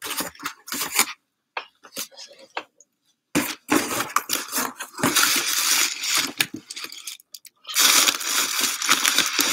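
Paper and plastic packaging crinkling and rustling as hands dig through wrapping and bubble wrap in a shipping box. After a few scattered crackles it becomes a dense crackle about three seconds in, pauses briefly, then comes back louder near the end.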